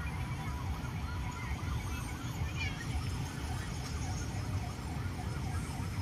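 A faint siren yelping in fast, even sweeps of about four a second, under a steady low rumble.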